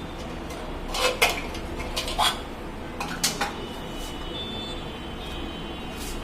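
Light clicks and clacks of hard plastic toilet fill-valve (ball cock) parts being handled and taken apart, about six in pairs between one and three and a half seconds in.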